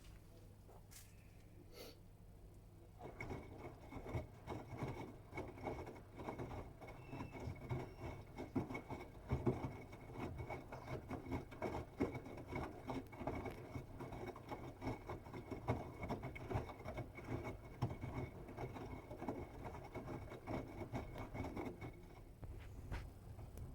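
Bosch Serie 8 WAW32590 front-loading washing machine during its wash phase. After a few seconds of low hum, the drum turns, tumbling the laundry with an irregular patter and clatter over a thin steady motor whine, then stops shortly before the end.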